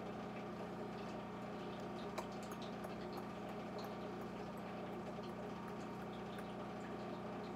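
Steady low hum with faint, scattered bubbling ticks from food simmering on the stove.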